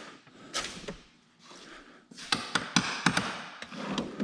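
Rummaging in a workshop: a few taps early, a short rustle, then a quick run of sharp clicks and taps as tools and parts are moved around while searching for bolts.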